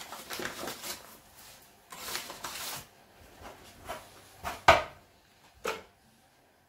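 Metal dough scraper working through bread dough on a kitchen countertop: soft scraping and rustling, then a few sharp knocks, the loudest about four and a half seconds in and another a second later.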